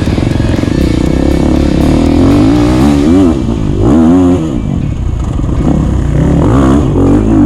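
Off-road motorcycle engine running hard under varying throttle, its pitch climbing and dropping several times as the rider works the throttle.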